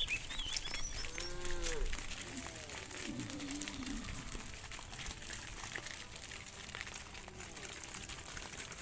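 Cows mooing: a short arched moo about a second in, then a longer moo that falls in pitch around the three-second mark. Birds chirp briefly at the start.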